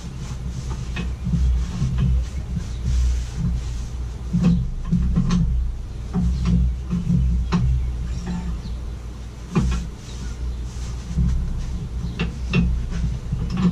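Scattered knocks and clunks of metal lathe parts being handled and fitted, over background music with a steady low beat.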